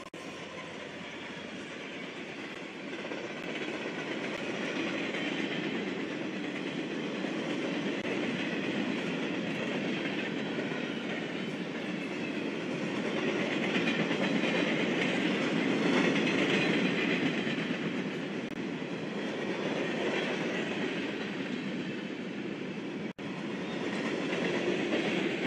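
Union Pacific freight train rolling past: boxcars and covered hopper cars, steel wheels running on the rails in a steady rumbling clatter that grows louder toward the middle.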